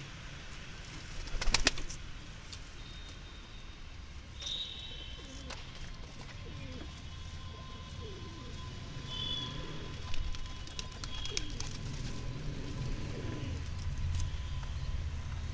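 Domestic pigeon cooing, a series of low gliding coos through the middle of the stretch. A brief sharp clatter comes about a second and a half in, and a few short high chirps are heard now and then.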